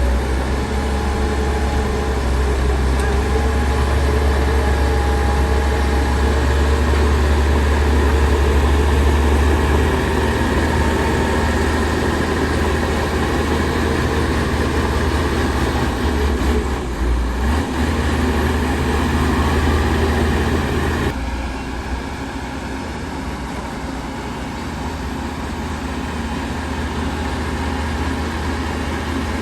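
Diesel engines of heavy earthmoving machinery running steadily with a deep rumble. The sound dips briefly about 17 seconds in, and about 21 seconds in it drops to a lower, quieter level.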